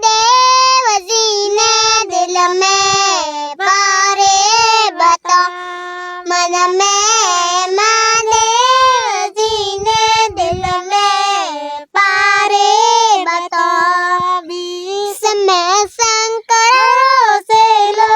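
A high-pitched solo voice singing a Marwari song, holding long notes and sliding between them with wavering ornaments.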